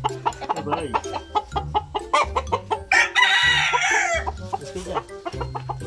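Chickens clucking over and over, with one loud rooster squawk lasting about a second some three seconds in.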